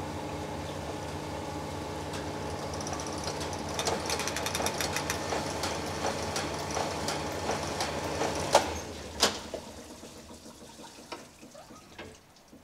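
Power cylinder-honing machine running a big-block Mopar cylinder bore with 600-grit CBN stones at very light pressure, a steady motor hum as the head strokes through the bore for a 10-stroke test pass. It shuts off with a sharp clunk about eight and a half seconds in, followed by a click and quieter handling as the hone is drawn out.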